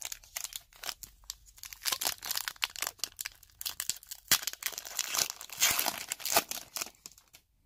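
A foil hockey-card pack wrapper torn open and crumpled by hand: a long run of crinkling crackles, busiest from about four seconds in.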